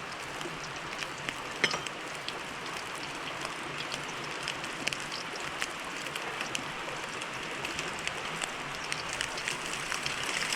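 Pork strips deep-frying in hot oil in a wok: a steady sizzle with constant crackling and popping, and one sharp pop about one and a half seconds in. The cooks put the repeated popping down to water in the marinated meat.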